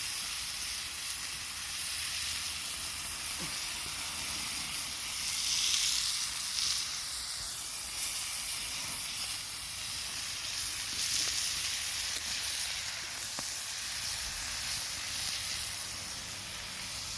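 Meat sizzling as it fries as kavurma in a saç, a wok-like iron pan: a steady, continuous high hiss.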